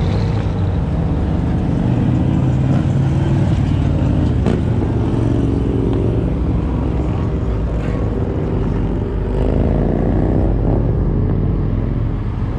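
Car engine running while driving, steady with road noise, its pitch rising for a moment about three-quarters of the way through.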